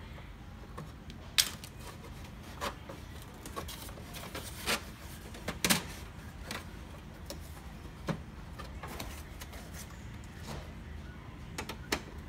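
Irregular clicks and knocks of a screwdriver and hands working on the plastic parts of an HP LaserJet M135a laser printer as it is taken apart, the sharpest about a second and a half in and again near the middle, over a low steady hum.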